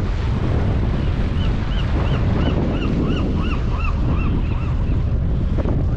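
Steady wind and water noise on a boat at sea, with a bird calling a quick series of about a dozen short notes, each rising and falling, about three a second, through the middle.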